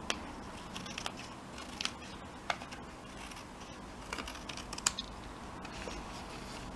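Scissors snipping through card in a series of short, irregular snips, trimming off an overlapping edge.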